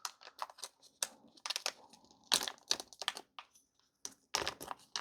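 A small plastic baggie crinkling and rustling in the hands as a key is worked out of it, with irregular sharp clicks.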